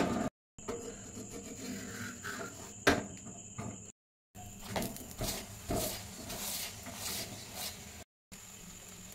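Metal spatula scraping and tapping on an iron tawa as a suji paratha cooks, with one sharp clack about three seconds in. A thin, steady high tone runs underneath, and the sound drops out in several short gaps.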